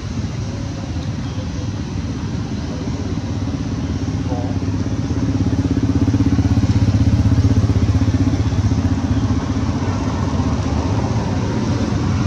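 An engine running steadily, a low hum that grows louder about five seconds in and eases slightly near the end.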